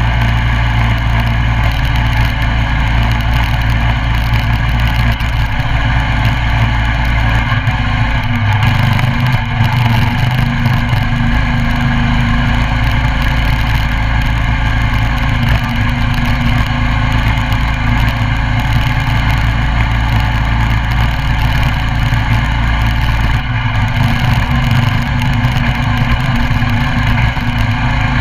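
Coleman CT200U mini bike's 196cc single-cylinder four-stroke engine running steadily while riding, its note shifting a little about eight seconds in and again near the end.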